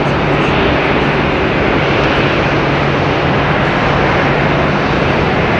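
Boeing 747 freighter's four jet engines at takeoff thrust during the takeoff roll: a loud, steady roar with a low steady hum beneath it.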